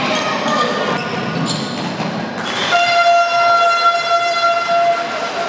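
A horn sounds one long steady blast of about two seconds, starting a little past halfway through. Before it comes the echoing noise of a sports hall.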